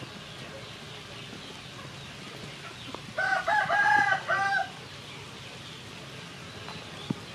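A rooster crows once, a cock-a-doodle-doo of about four notes lasting about a second and a half, over a steady background hum. A couple of faint clicks come before and after it.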